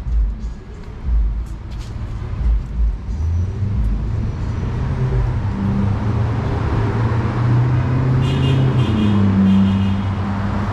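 City road traffic: a motor vehicle's engine drones and builds up from about four seconds in as it draws near and passes. There are a few short high-pitched chirps near the end.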